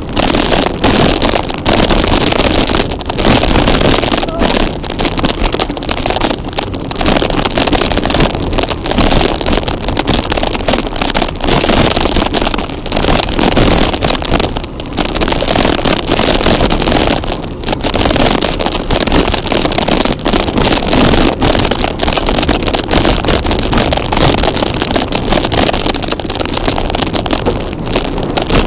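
Vehicle engine running while driving along a dirt track, mixed with heavy wind rumbling on the microphone.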